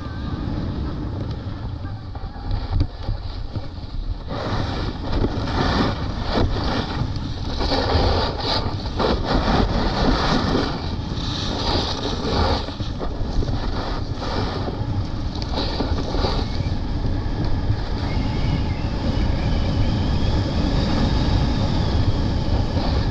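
Wind buffeting the microphone of a snowboarder's body-mounted camera during a downhill run, with the board scraping and carving over packed snow in rough bursts, heaviest from about four to thirteen seconds in.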